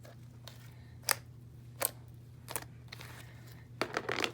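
Homemade glue slime being squeezed and stretched by hand, giving single sharp clicks and pops about every three-quarters of a second, then a quick run of them near the end, over a steady low hum.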